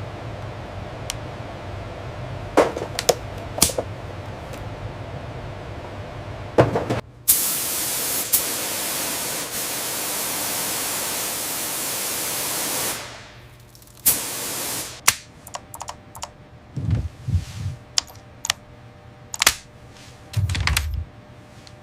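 A low steady hum with scattered clicks and taps, then a loud hiss lasting about six seconds that fades out, followed by scattered clicks and knocks.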